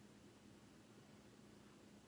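Near silence: steady faint hiss of room tone with a low steady hum.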